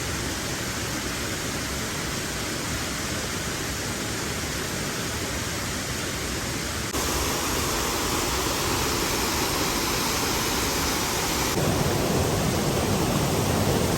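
Waterfall: a steady, even rush of falling water that steps up abruptly in loudness about halfway through and again near the end.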